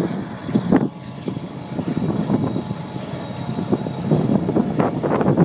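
Wind buffeting the microphone in uneven gusts, harder near the end, over the low rumble of a distant freight train's GE ES44AC and ES44C4 diesel locomotives.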